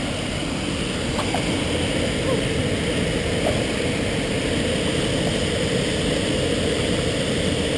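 Steady rush of a waterfall: constant, even water noise.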